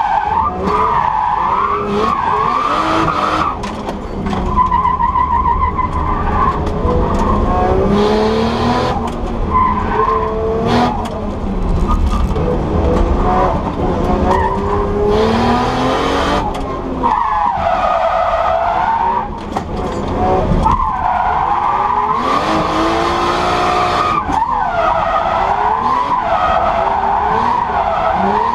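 Nissan Skyline R34 drift car heard from inside the cabin: the engine revs up and down over and over while the tyres squeal through slides.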